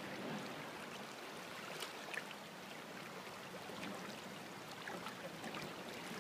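Steady rush of the Kenai River's flowing water, with a couple of faint clicks about two seconds in.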